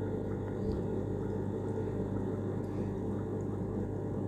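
A steady low hum with faint background noise (room tone); no distinct event stands out.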